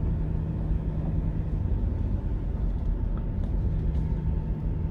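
A car driving along at a steady speed: a steady low road and engine rumble, heard as from inside the cabin.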